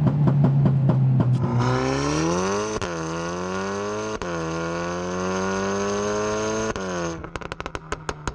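Stage 2 remapped Volkswagen Golf 8 R's turbocharged 2.0-litre four-cylinder heard at the exhaust tips under full-throttle acceleration. The revs climb, broken by quick gearbox upshifts, each marked by a crack and a drop in pitch. Near the end, off the throttle, the exhaust gives a rapid string of pops and crackles.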